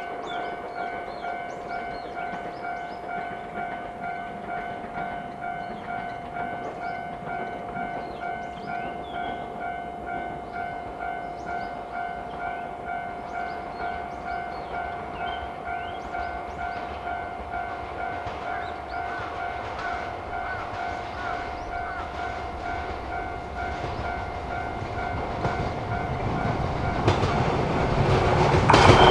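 Railway level-crossing warning bell ringing steadily at about two strokes a second. Near the end a train approaches and the rumble of its wheels grows louder.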